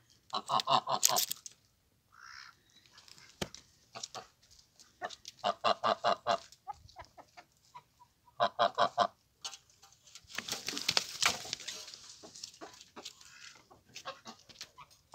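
Domestic goose honking in three bursts of quick repeated honks: near the start, around the middle and a little later. In the later part there is also a breathy hiss lasting a few seconds.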